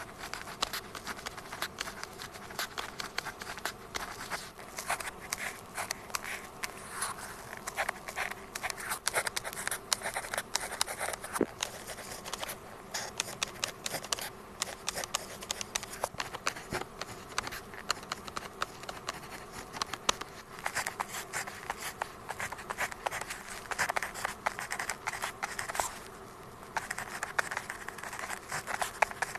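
Pen tip writing on paper, close-miked: a steady run of short scratchy strokes, with a brief pause near the end.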